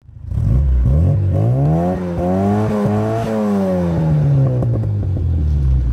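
A car engine revving up and easing off: its pitch rises for about two seconds, holds briefly, then falls away.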